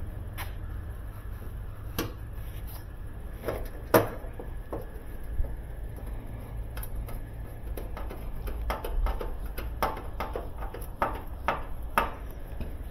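Scattered clicks and light metallic knocks of a hand screwdriver and screws against a washing machine's sheet-metal base frame, with one sharper knock about four seconds in and a quicker run of clicks near the end. A steady low hum runs underneath.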